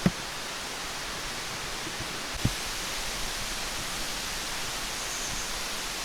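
Mountain stream rushing steadily. Two short low thumps, one right at the start and a louder one about two and a half seconds in.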